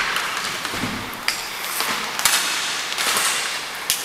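Inline roller hockey play: a steady rolling hiss of skate wheels on the rink floor, broken by several sharp clacks of sticks hitting the puck and the floor.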